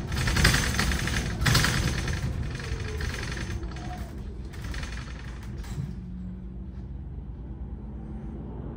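Mercedes-Benz eCitaro G articulated battery-electric bus heard from on board while riding: dense rolling and rattling noise with two loud surges in the first two seconds. It grows quieter, the hiss dropping away about six seconds in, leaving a low hum and rumble.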